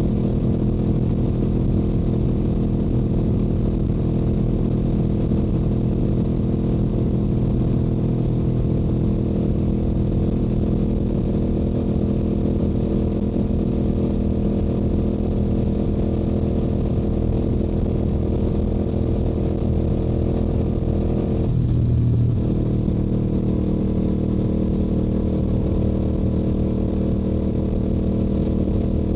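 Stock Yamaha YZF-R7's 689 cc parallel-twin engine and stock exhaust running at a steady highway cruise. About three-quarters of the way through, the engine note breaks briefly and settles at a slightly different steady pitch.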